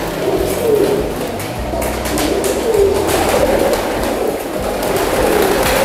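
Domestic pigeons cooing, many overlapping coos rising and falling one after another, with a few short clicks among them.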